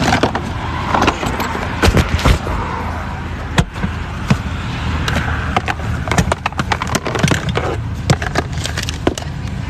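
Irregular knocks and clatter as a wheel and tire are pulled out of a car's trunk and handled, over a steady low hum.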